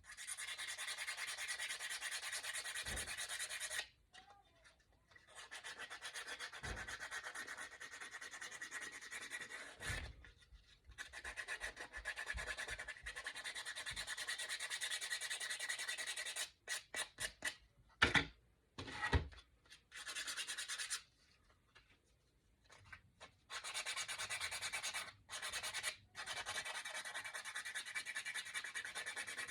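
Hand sanding with a small piece of sandpaper along the edges of a painted wooden cutout. The rapid strokes run in long stretches broken by short pauses, with a flurry of short, separate strokes just past the middle.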